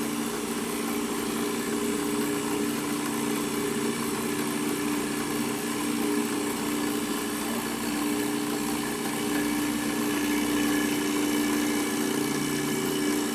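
Milling machine running with a steady hum while its end mill is fed back through a cut in a metal tube, a little louder for a few seconds near the end.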